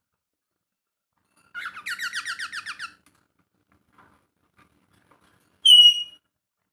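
Pet parrots calling: a rapid run of chirps lasting about a second and a half, then a single short, loud whistle near the end.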